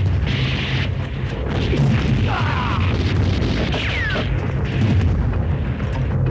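Action-film shootout sound effects: a dense, continuous heavy rumble of gunfire and blasts. Short whines falling in pitch cut through it several times, like bullet ricochets.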